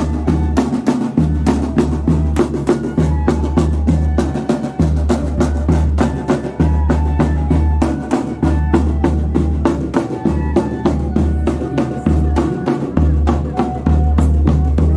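Banda de pífano playing: bamboo fifes carry a melody over a steady rhythm of zabumba bass drum and snare drum.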